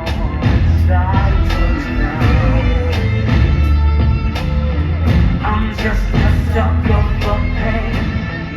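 Loud song with heavy bass, a steady beat and a wavering sung melody line.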